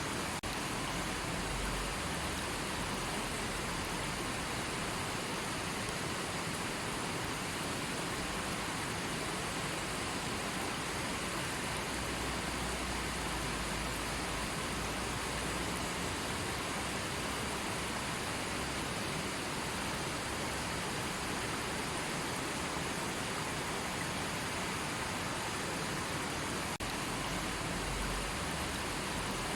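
River water rushing and burbling, a steady even hiss.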